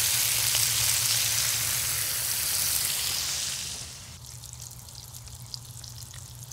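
Bacon strips sizzling on a hot cast iron griddle top: a loud, dense sizzle that falls about four seconds in to a quieter crackle with scattered pops, over a steady low hum.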